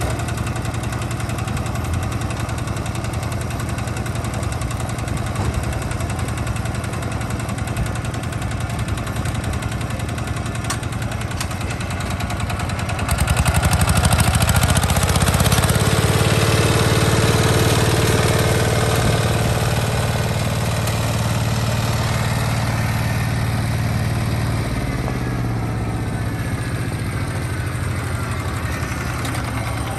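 Old farm engine running steadily; about 13 seconds in it gets louder and deeper, easing back down after about 20 seconds.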